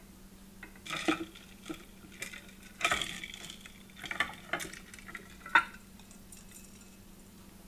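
Silicone spatula stirring a thin egg-yolk, sugar and milk mixture in a glass bowl: a run of irregular wet swishes and scrapes against the glass starting about a second in, with one sharp, louder scrape or tap near the end of the stirring.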